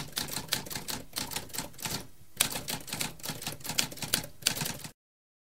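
Typewriter keys being struck in a rapid, uneven run of clacks, several a second, with a brief pause about two seconds in. The typing stops abruptly about five seconds in.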